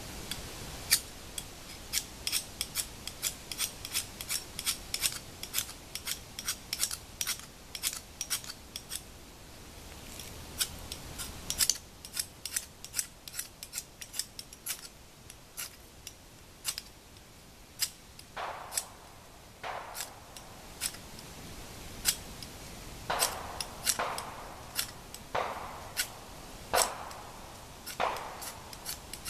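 A metal striker scraped again and again down a fire-starter rod to throw sparks onto a tinder bundle. It starts as a rapid run of short, sharp scrapes, then, about eighteen seconds in, turns to fewer, longer rasping strokes.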